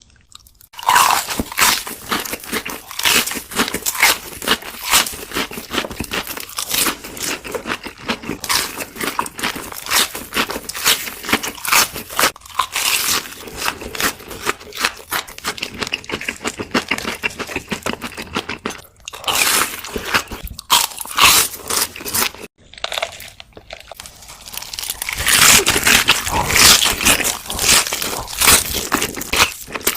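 A person crunching and chewing crispy fried chicken and shrimp close to the microphone: a dense run of loud, crackly bites and chews, with a couple of brief pauses.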